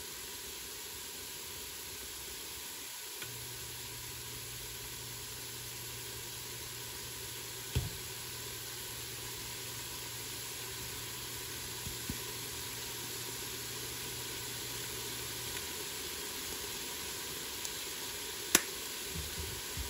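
Sliced onions and carrots sizzling steadily as they sauté in a stainless steel stock pot, with a few sharp clicks, the loudest near the end.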